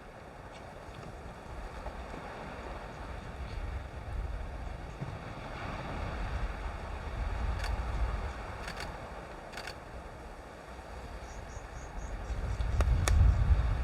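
Wind buffeting the microphone in a steady low rumble that grows stronger near the end, with a few short, sharp clicks of a DSLR camera shutter scattered through it.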